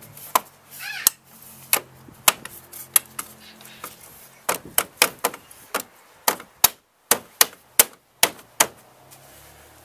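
Plastic retaining clips of a new BMW kidney grille snapping into place as the grille is pressed home by hand: an irregular run of sharp clicks, coming faster in the second half.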